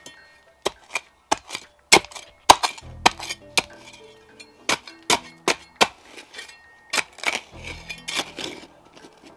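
Cold Steel Spetsnaz shovel blade chopping into the ground while digging a pit, a string of sharp strikes at irregular intervals with a metallic clink, as if hitting stones in the soil.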